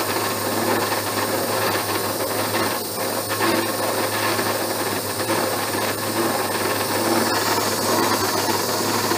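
Abene horizontal milling machine running a side-milling cutter on its arbor through a slot cut at a very slow table feed. The cut is chattering, which the machinist puts down to a cutter that may not be as sharp as he thought.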